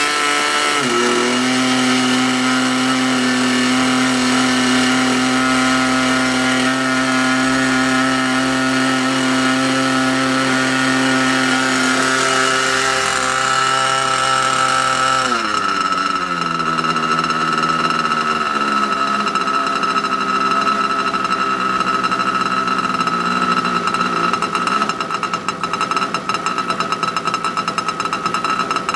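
Small model-airplane engine of an R/C Cessna 182 running at steady high revs while it warms up from cold. About halfway through it is throttled back and steps down in pitch, settling near the end into a lower, uneven-sounding idle.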